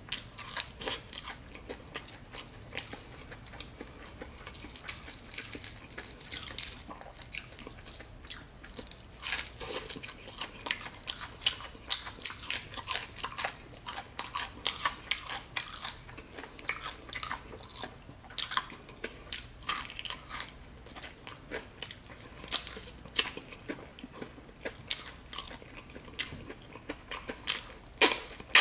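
Close-up chewing and crunching of crispy Shake & Bake oven-baked chicken, with bites into the crispy coating and wet mouth sounds in a steady stream of short crackly clicks.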